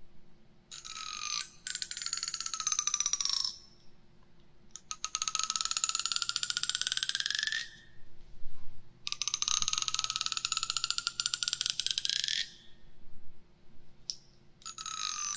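Teeth of a plastic comb run along close to a binaural microphone. Each stroke is a fast ticking buzz whose pitch slides as it goes, and several strokes of a few seconds each come with short gaps between them.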